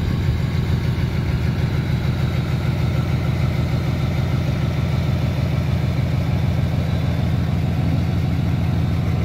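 Cummins turbo-diesel engine of a Dodge Ram 3500 pickup idling steadily, a low, even rumble.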